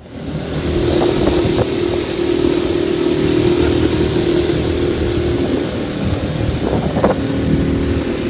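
Small boat's outboard motor running steadily at cruising speed, a held engine drone over rushing water and wind noise, fading in over the first half second.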